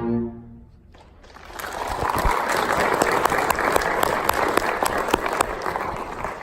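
An orchestral piece ends and, after a short pause, an audience applauds. The clapping builds quickly, holds for about five seconds and fades out near the end.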